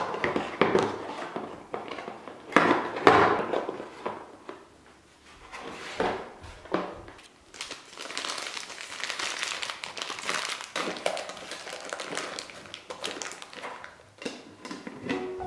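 Small plastic bags of nails and pins crinkling as they are handled and packed into a metal tin, with occasional light knocks against the tin.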